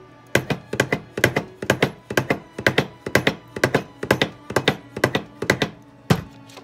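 Rieger tip profiler being worked back and forth over the tip of a bassoon reed, its blade scraping cane from the second side: a steady run of knocks, about two a second, each a quick double knock, stopping about a second before the end.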